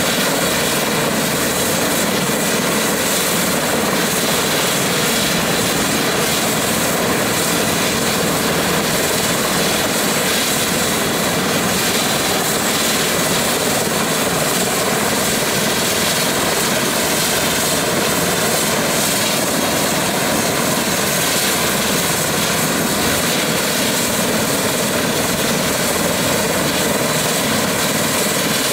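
Airbus EC145 T2 helicopter running on the pad, its twin turboshaft engines, main rotor and Fenestron tail rotor turning. A loud, steady turbine and rotor noise with a faint whine, unchanging throughout.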